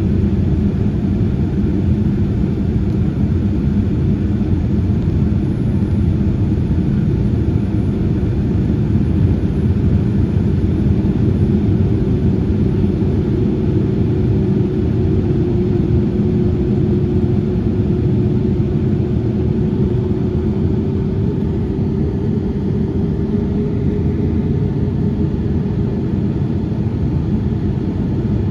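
Airliner jet engines and airflow making a steady low rumble, with a faint tone that rises slowly in pitch about halfway through.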